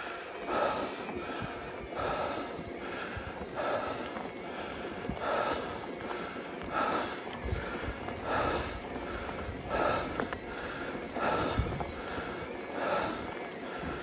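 A cyclist breathing hard in a steady rhythm, close to the microphone, about one breath every second and a half, with a low rumble underneath.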